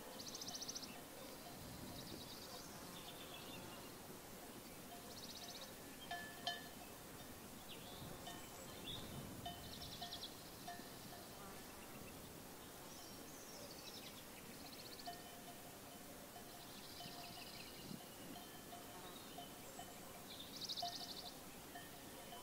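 Songbirds singing short, high, trilled phrases every few seconds over a faint steady outdoor background.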